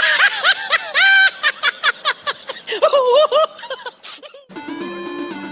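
High-pitched cackling laughter, a run of short rising-and-falling "hee" sounds. About four and a half seconds in it cuts off and electronic, game-like music with stepping notes starts.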